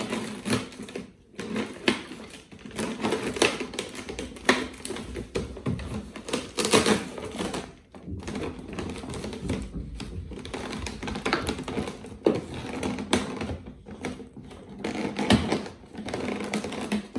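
Large plastic bottles being handled and pushed together, the thin plastic crackling and clicking in an irregular, rapid run with occasional sharper knocks.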